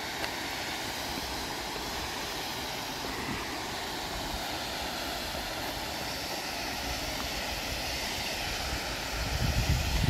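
Waterfall rushing steadily. About nine seconds in, a louder, irregular low rumble joins it.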